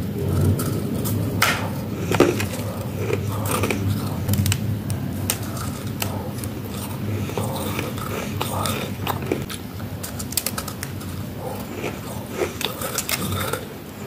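Close-miked crunching of soft freezer frost being bitten and chewed: a steady run of crisp crackles, with a sharper crack about two seconds in and thicker clusters near the end.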